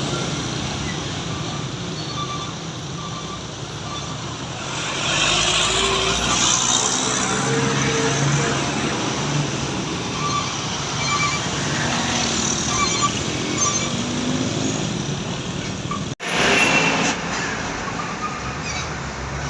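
Roadside traffic noise, with a heavy vehicle passing close by from about five seconds in. Faint short tones sound in the background, and the sound cuts off abruptly about sixteen seconds in before the traffic noise resumes.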